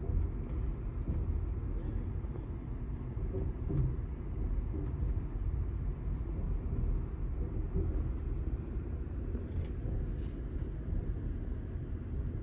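Steady low rumble of an Amtrak passenger train running along the track, heard from inside the passenger car.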